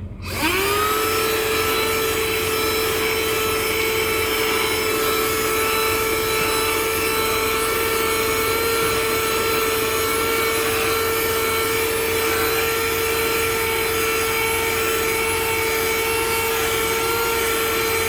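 Small 12-volt handheld car vacuum cleaner, run from a cigarette lighter socket, switching on and spinning up quickly, then running at a steady whine over the hiss of rushing air.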